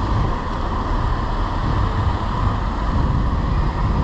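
Steady wind noise buffeting an action camera's microphone while cycling, with road traffic running underneath.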